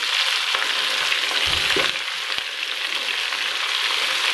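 Sliced onions sizzling in hot oil in a karahi with fried bitter gourd, as a spatula stirs them, with a few light knocks of the spatula against the pan.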